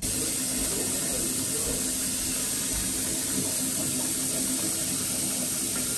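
Water running steadily from a bathtub tap, filling a bubble bath.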